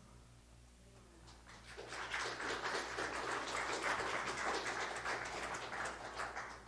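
Small congregation clapping: a dense, even patter of applause that builds up about a second and a half in, holds steady, and dies away near the end.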